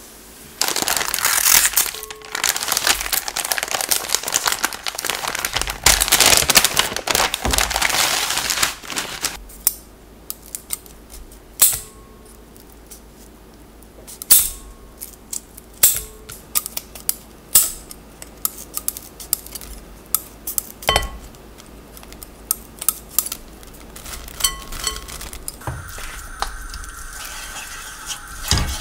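Crinkling and rustling for the first several seconds, then a run of sharp snips as kitchen scissors cut dried filefish into a glass bowl. Near the end, minced garlic sizzles in oil in a wok.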